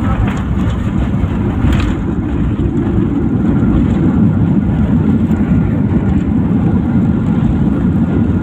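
Airliner cabin noise during the landing phase: a steady, loud low rumble of engines and rushing air, heard from inside the passenger cabin.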